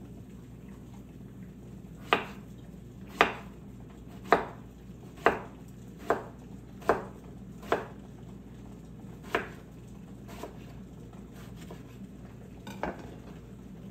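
Kitchen work: a run of about eight sharp knocks and clinks of utensils on dishes or a board, roughly one a second, trailing off into a few fainter ones, over a steady low hum.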